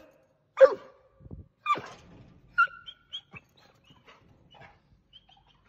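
American Staffordshire terrier barking twice in the first two seconds, the barks ringing back briefly. A shorter, higher sound comes about halfway through, and only faint sounds follow.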